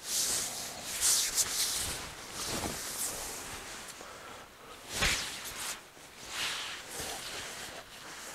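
A quilted hammock underquilt and hammock fabric rustling and swishing as they are pulled and smoothed by hand. The strokes are irregular, loudest about a second in and again about five seconds in.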